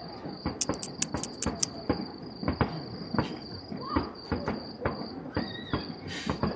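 Distant fireworks going off: sharp pops and bangs at irregular intervals, with a quick run of crackling reports about a second in.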